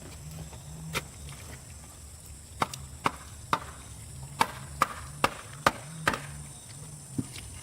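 A series of sharp chopping or hammering strikes on wood: one about a second in, then a quick run of about eight strikes at roughly two a second, and a last one near the end. A low wavering hum runs underneath.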